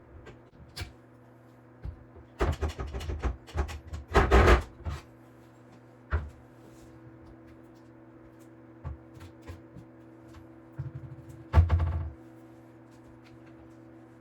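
Kitchen cabinet doors and their hardware being handled, knocking and clattering in several loud clusters: about two seconds in, about four seconds in, and near the end. A steady low hum runs underneath.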